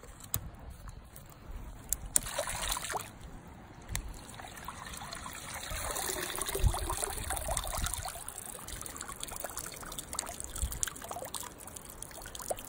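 Shallow swamp water trickling and sloshing as it is stirred while a crawfish trap is checked, with scattered small knocks. It is busiest around the middle.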